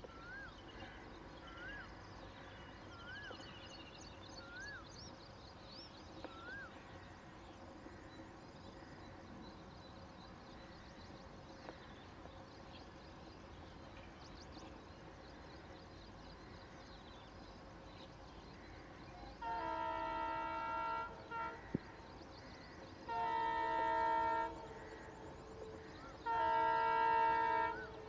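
Multi-tone air horn of an ALCo WDG3A diesel locomotive sounding three blasts of about a second and a half each, with a short toot right after the first, as the train approaches. Before the horn, a bird calls repeatedly with a short rising-and-falling note about every second and a half, over a faint steady background.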